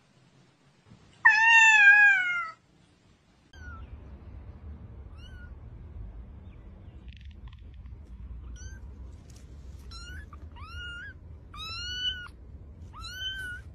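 An adult cat gives one loud, drawn-out meow that falls slightly in pitch. Then a kitten mews over and over in short, high-pitched cries, coming faster toward the end, over a low steady background noise.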